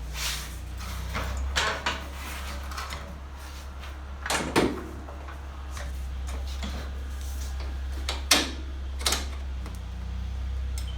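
Scattered clinks and knocks of metal parts and hand tools being handled, about half a dozen, the loudest about four and a half and eight seconds in, over a steady low hum.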